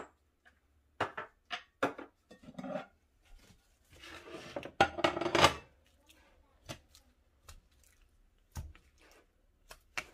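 Marinated steaks being lifted out of a bowl of marinade by hand and laid on a plate: wet handling of the meat with light knocks and clinks of the dishes. The sound comes in short knocks, with the busiest and loudest stretch from about four to five and a half seconds in, then only scattered faint ticks.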